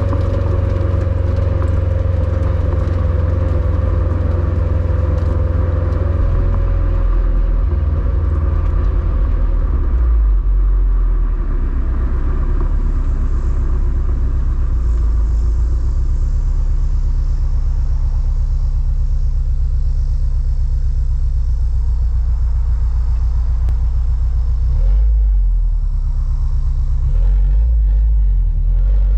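A 2021 Subaru WRX STI's turbocharged 2.5-litre flat-four boxer engine idling through its stock quad-tip exhaust with a steady low rumble. The revs ease down and settle about seven seconds in, and two brief swells come near the end.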